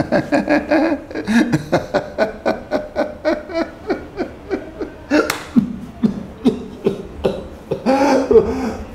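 A man laughing hard in a long run of short, falling pulses, about three a second, with a louder burst about five seconds in.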